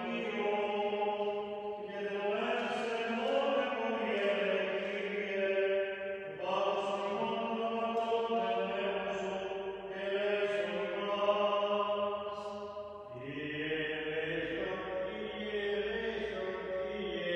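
Greek Orthodox Byzantine chant, sung unaccompanied by a male voice in long held, slowly moving notes. Near the end a lower voice comes in beneath the melody.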